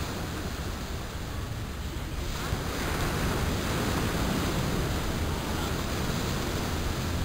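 Ocean surf breaking on a sandy beach: a steady wash of waves that swells louder about three seconds in as a wave crashes and runs up the shore.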